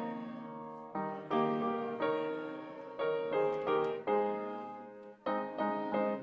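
Piano playing a slow piece, with chords struck about once a second and left to fade.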